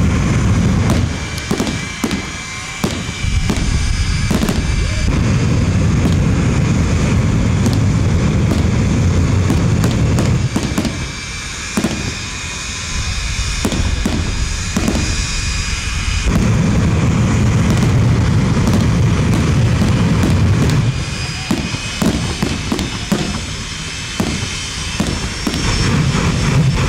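Jet car's jet engine running on afterburner, its exhaust flame torching a wrecked car: a loud, deep, crackling rumble that swells and eases in surges, with a thin high whine at times.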